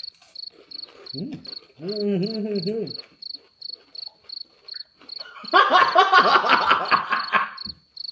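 A cricket chirps steadily, a short high chirp about three times a second. About two seconds in, a person hums an appreciative 'mmm' while tasting. Past the middle comes a louder burst of laughing and exclaiming.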